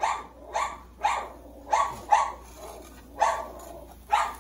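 Dogs barking repeatedly, about seven sharp barks at uneven intervals: alarm barking at someone walking past on the sidewalk.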